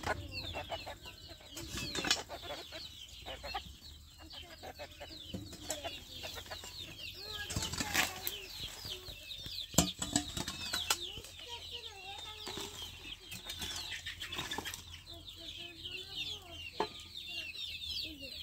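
Hens clucking over constant high chirping of birds, with scraping and a few sharp knocks of a hoe blade working the ground. The loudest knock comes about ten seconds in.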